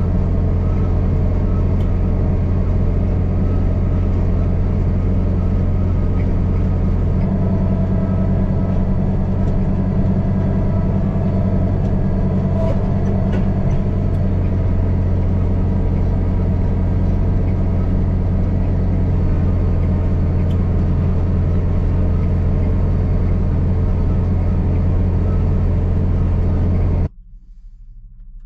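Farm tractor's diesel engine running at a steady speed, a deep even drone with a slight shift in pitch about seven seconds in. Near the end it drops abruptly to a much quieter, lower hum.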